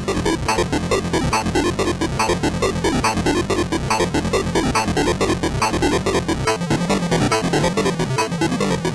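Soulsby miniAtmegatron 8-bit synthesizer playing a fast, steady run of short, buzzy notes with a sweep that keeps repeating, in a chiptune-like sequence.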